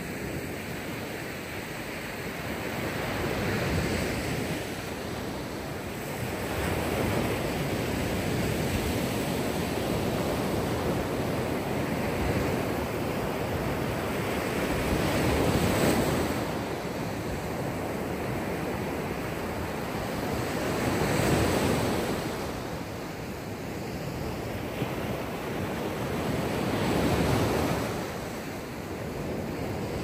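Mediterranean Sea waves breaking and washing onto the shore. The surf is continuous and surges louder and eases off every few seconds as each wave comes in.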